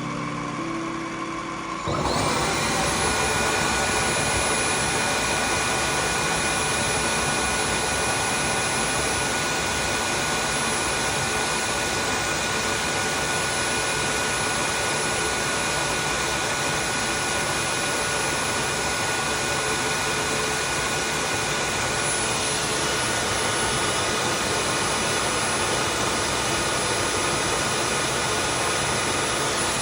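Tineco Floor ONE S5 cordless wet-dry vacuum's suction motor starting up about two seconds in and then running steadily with a high whine, during the machine's deep-cleaning self-clean cycle. The tone shifts slightly about two-thirds of the way through.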